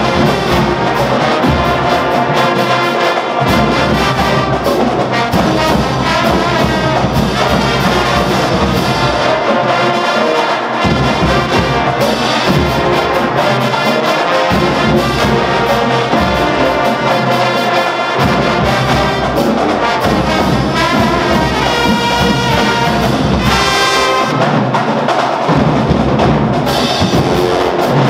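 A full marching band's brass section, sousaphones, trumpets, trombones and saxophones, playing a loud song together.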